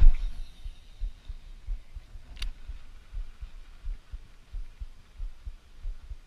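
Handling noise on a body-worn camera as an angler casts and reels a baitcasting reel: a loud thump with the cast at the start, then irregular low thumps from movement against the microphone, and one sharp click about two and a half seconds in.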